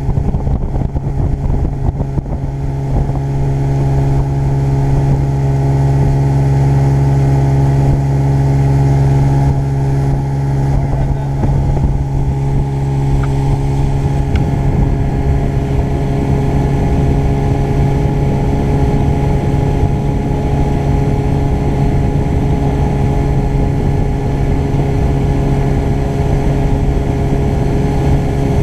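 Outboard motor running steadily as the boat moves under way, an even drone that holds one pitch and gets a little louder in the first few seconds.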